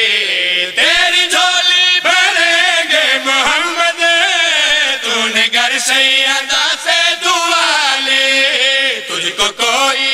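A group of men chanting a devotional qaseeda unaccompanied: a lead voice with others joining in unison. The notes are long, held and wavering.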